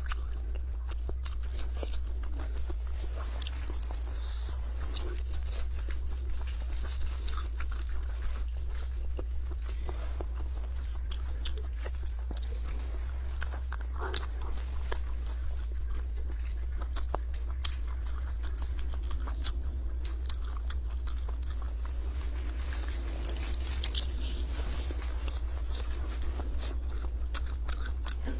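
Close-miked chewing and biting of a black-pepper grilled sausage: wet mouth sounds with many small crisp clicks, over a steady low hum.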